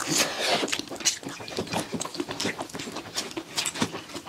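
Close-up eating sounds of two people eating fried rice by hand: chewing and lip smacks in a dense run of quick wet clicks, with fingers mixing rice on steel plates.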